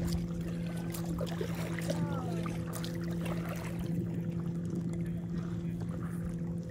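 Lake water lapping and trickling around a stand-up paddleboard, with small drips and ticks, over a steady low hum.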